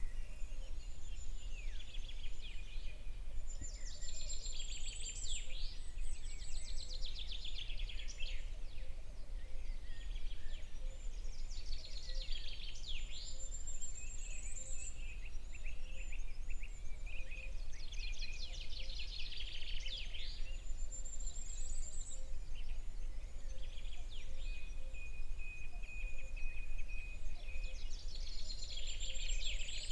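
A songbird singing: rapid trilled phrases a few seconds long, each ending on a high thin note, repeated about four times at intervals of roughly eight seconds, over a steady low rumble.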